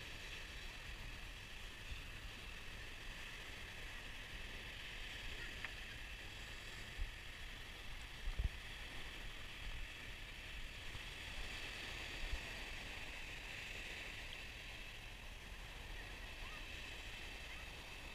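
Small surf washing onto a sandy beach, a steady hiss, with a low rumble underneath and a few soft thumps midway.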